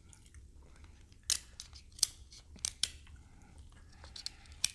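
Shears snipping through king crab leg shells: about five sharp, crunchy snips at uneven intervals.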